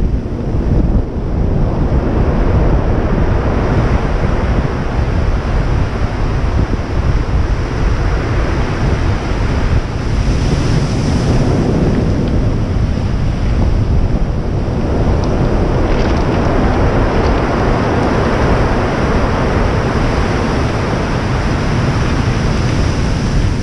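Heavy sea surf breaking and washing up the shore, loud and continuous, surging a little louder about halfway through. Strong wind rumbles on the microphone underneath.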